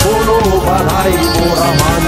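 Background music: a melody with a wavering pitch line over a dense, steady backing.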